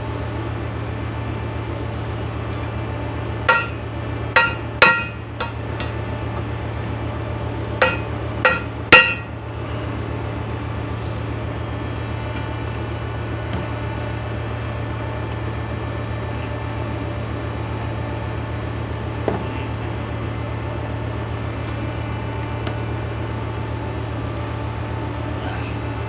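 Hammer blows ringing on the steel of a mooring winch brake band while its lining is renewed: four strikes a few seconds in, a short pause, then three more, the last the loudest. A steady low hum runs underneath.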